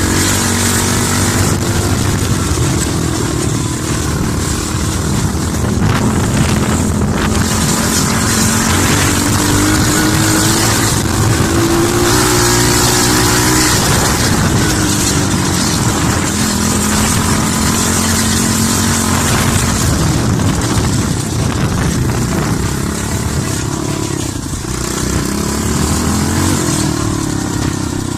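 Dirt bike engine running while ridden, its pitch rising and falling repeatedly as the throttle opens and closes, with a steady hiss over it.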